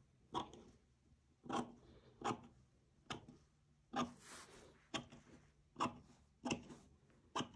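Scissors snipping through lace: about nine separate sharp snips, a little under a second apart, with a brief rustle of the lace about halfway through.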